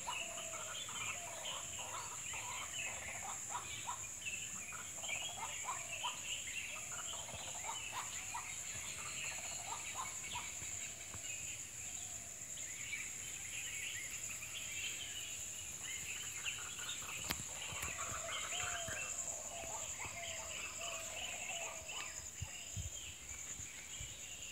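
Many birds calling together in forest: a busy mix of short chirps, whistles and quick gliding notes, over a steady high-pitched drone.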